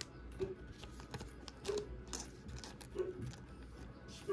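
A dog barking from another room: four short, dull barks about a second and a quarter apart, over light clicks of trading cards being handled.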